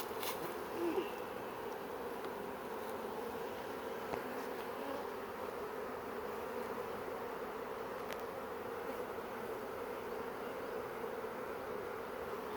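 Honeybees buzzing steadily: the continuous hum of a freshly hived swarm flying around and working at the hive entrance.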